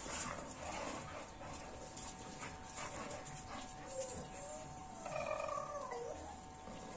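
Dog whining: a few short whimpers, then a longer whine that bends and falls in pitch about five seconds in.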